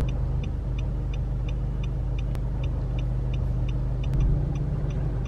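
Car engine running with a steady low hum inside the cabin, while the turn-signal indicator ticks evenly about three times a second.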